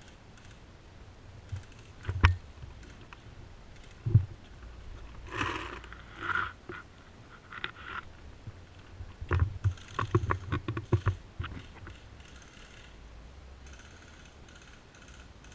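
Airsoft (BB) gun shots: two single sharp cracks a couple of seconds apart, then a quick string of shots about nine to eleven seconds in, with rustling of movement in between.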